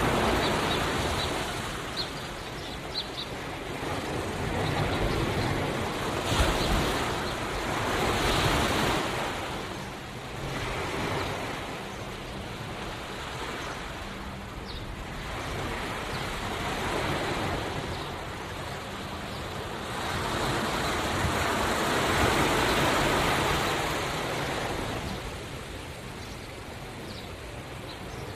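Ocean waves breaking and washing up the shore, the surf swelling and drawing back in slow surges every few seconds, with a large swell near the end.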